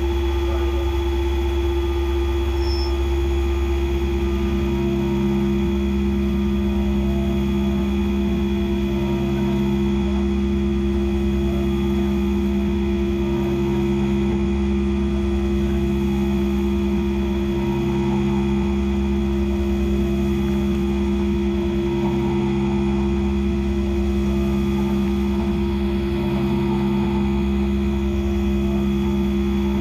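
Skyfire SVM-2 CNC vertical mill cutting an aluminum block under flood coolant: a steady spindle hum. A second, lower tone joins about four seconds in, and a still lower one pulses on and off about every two seconds.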